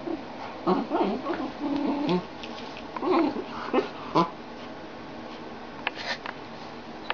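An English cocker spaniel and a boxer at play, giving a quick string of short vocal sounds during the first four seconds, then quieter with a couple of sharp clicks about six seconds in.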